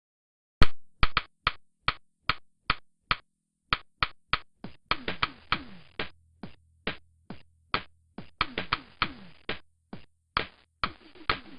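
Gemmy Living Garden animatronic toy playing its recorded woodpecker pecking sound through its small speaker: sharp taps a few a second, with quicker runs of taps about halfway through and again near the end, over a faint low hum.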